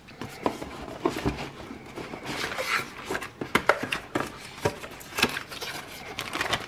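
Cardboard boxes of connecting rods being opened and handled: lids and inner boxes sliding, tapping and scraping, with plastic wrapping rustling, in a string of short, irregular knocks and clicks.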